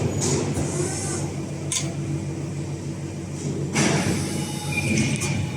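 Electro-hydraulic CNC press brake running with a steady low hum, with a sharp metallic clank a little under two seconds in and a louder one near four seconds.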